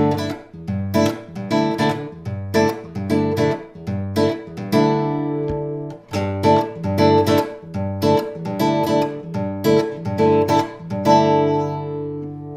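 Ramirez 2CWE nylon-string classical guitar strummed and fingerpicked in a steady rhythmic chord pattern, about two strokes a second, with a chord left ringing twice. It is heard through a bass amplifier fed by the guitar's built-in microphone pickup.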